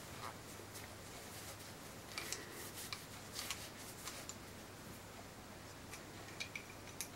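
Faint rustling and rubbing of a cloth rag as a revolver barrel is wiped by hand, with a few soft clicks and handling sounds scattered through.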